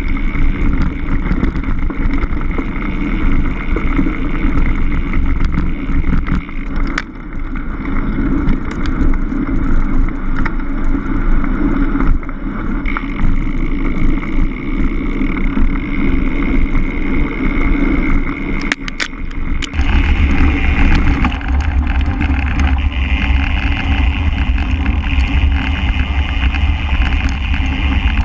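Cannondale Scalpel mountain bike ridden fast over a forest singletrack: continuous tyre rumble on dirt with small rattles and knocks from the bike, and wind buffeting the action camera's microphone. About two-thirds of the way through, the sound changes abruptly to a heavier low rumble.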